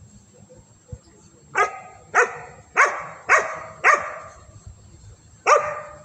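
Dog barking six times: five barks in a quick, even run, then a pause and one more bark near the end.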